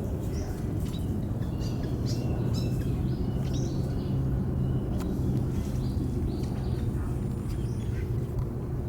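Birds calling in short, high chirps scattered throughout, over a steady low hum.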